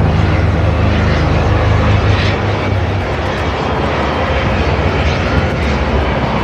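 Two CH-53E Super Stallion three-engine heavy-lift helicopters flying past, a steady low rotor thrum under a wide wash of engine noise.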